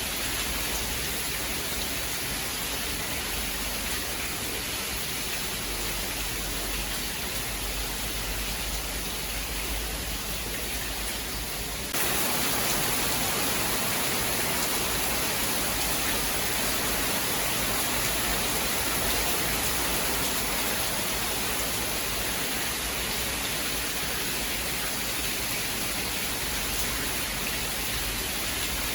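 Steady rain falling, an even hiss with no thunder heard. A little under halfway through it abruptly turns louder and brighter, then holds steady.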